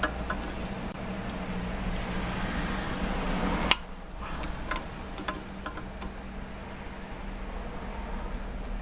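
Screw-extraction pliers gripping and twisting a stuck screw: a few seconds of grinding scrape that ends abruptly with a click, then scattered light metal clicks and ticks. A steady low hum runs underneath.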